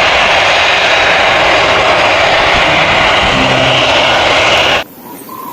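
Jet airliner engine noise: a loud, steady rushing hiss that cuts off suddenly near the end.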